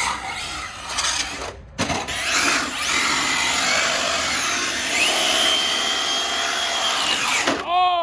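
Arrma Felony 6S brushless RC car driven hard, its electric motor whining over tyre noise on concrete. The whine climbs sharply about five seconds in, holds, then drops away near the end.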